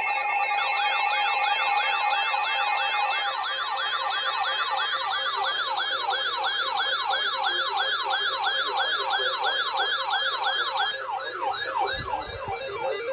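Weather alert radio's warbling siren alarm: a rising-and-falling tone repeating about three times a second, set off by a severe thunderstorm warning. A second, higher warble overlaps it and stops about eleven seconds in.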